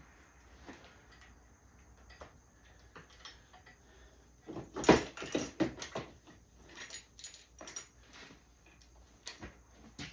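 Clinks and knocks of metal tools and parts being handled while the engine is taken out of a dirt bike, with a cluster of sharp clanks about halfway through and a few more toward the end.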